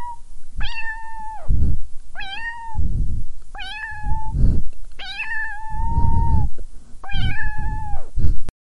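Cat meowing five times, about every second and a half, each meow a clear, steady call held for half a second to a second. Low, rough noise fills the gaps between the meows.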